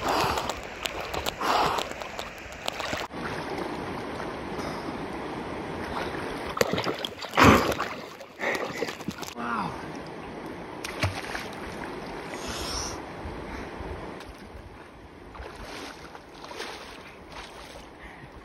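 River water splashing and sloshing as a person swims, over the steady rush of the stream, with a loud splash about seven and a half seconds in.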